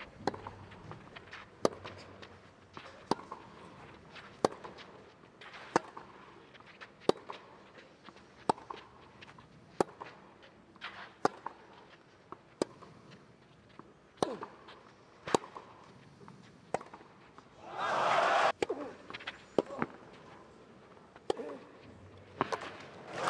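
Tennis ball struck back and forth in a long rally: a sharp racket hit about every one and a half seconds. Near the end of the rally comes a short burst of crowd noise, and another begins at the very end.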